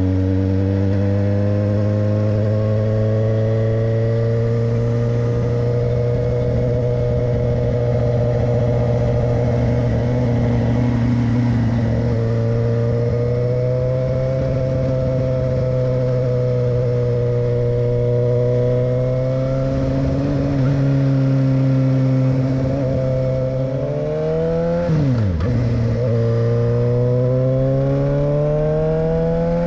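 Motorcycle engine running steadily while the bike is under way, its pitch drifting gently up and down with the throttle. About twenty-five seconds in the pitch drops sharply and climbs back.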